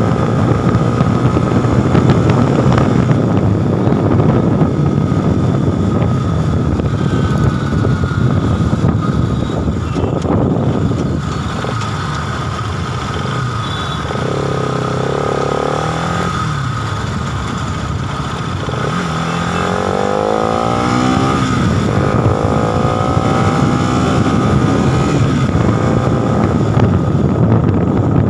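Bajaj Pulsar NS200's single-cylinder engine running as the bike is ridden, with wind noise on the microphone. Past the middle it goes a little quieter, then the revs climb as it accelerates again.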